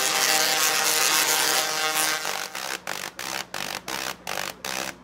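Singing Tesla coils playing music with their lightning arcs: buzzy, harsh tones with many overtones. The tones are held for the first two seconds, then break into short staccato notes about three a second.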